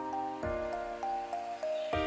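Instrumental background music: sustained chords that change about every second, a low bass note at each change, and a simple melody moving on top.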